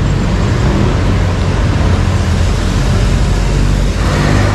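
A motor vehicle engine running steadily amid street traffic noise, with a voice starting near the end.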